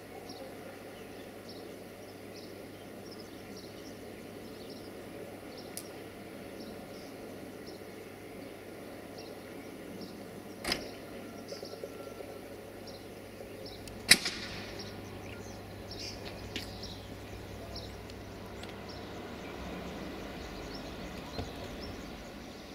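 Rail-yard ambience: a steady low hum and rumble from electric locomotives, with short high chirps repeating about once a second. Two sharp knocks stand out, one about halfway through and a louder one a few seconds later.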